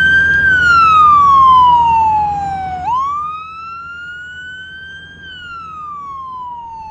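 Emergency vehicle siren sounding a slow wail over a steady low rumble. The pitch falls, snaps quickly back up about three seconds in, climbs slowly and falls again. It is louder for the first few seconds, then quieter.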